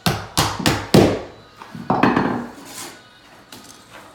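Hammer nailing carpet tack strip to a wooden subfloor: four quick, sharp strikes in the first second, then a few more knocks about two seconds in.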